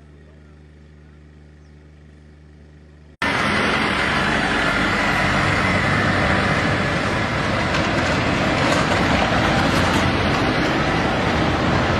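A low, steady hum, then about three seconds in an abrupt cut to a loud, steady rush of road noise from convoy trucks driving past close by.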